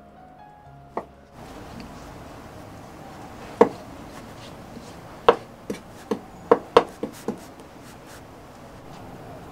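Kitchen knife knocking on a wooden cutting board while boiled vegetables are cut and their skins scraped off: one knock about a second in, then a quick run of about seven sharp knocks in the middle. Soft background music stops about a second in.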